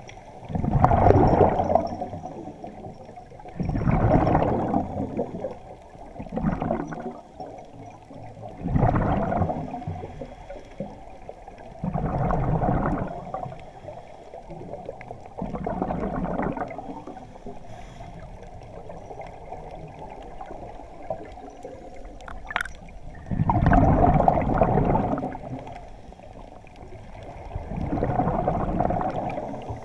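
Scuba regulator exhaust bubbles heard underwater: a diver breathing out in bursts of gurgling bubbles every three to four seconds, with a longer pause in the middle. One short sharp sound about two-thirds of the way through.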